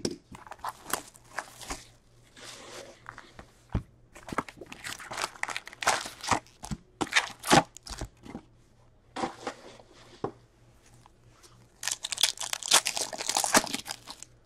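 Cardboard hobby box of Upper Deck 2020-21 Series Two hockey cards being opened and its packs handled, with scattered rustles and clicks. About twelve seconds in comes a dense crinkling tear as a card pack's wrapper is ripped open.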